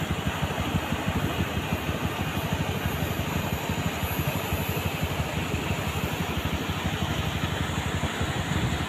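Shallow rocky mountain stream rushing steadily over boulders: an even hiss with an unsteady low rumble underneath.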